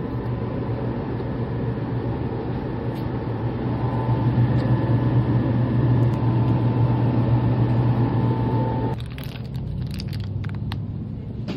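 Steady road rumble of a car heard from inside the cabin while driving, with a low hum under it. About nine seconds in it drops in level and a few clicks and taps come in.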